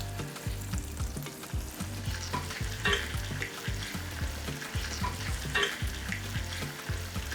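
Prawns sizzling in hot oil in a frying pan, with a spatula scraping against the pan twice, about three seconds in and again near the six-second mark.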